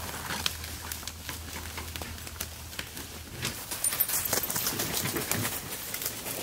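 Footsteps and a loaded gear sled crunching and rustling through dry fallen leaves, an irregular run of crackles and rustles.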